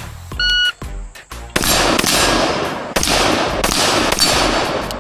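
A shot timer beeps once, then about a second later a string of several gunshots rings out from a shooter's timed drill.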